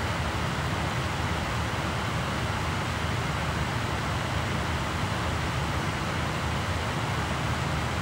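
A laptop's optical drive spinning a CD at speed while burning it: a steady, even whirring noise that does not change.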